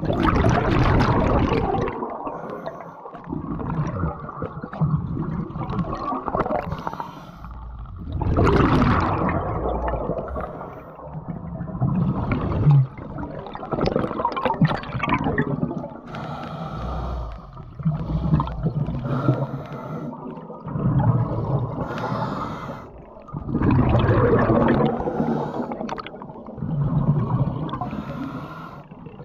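A scuba diver breathing through a regulator underwater: loud rushing, gurgling bursts of exhaled bubbles every few seconds, with quieter stretches between breaths.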